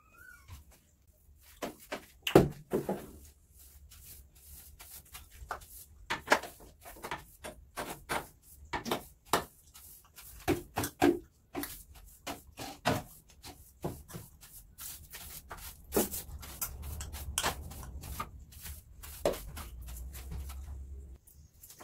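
Irregular knocks and clatters of bathroom cleaning: a long-handled cleaning tool and objects being moved around in a small tiled room. A low steady hum joins in for the last few seconds.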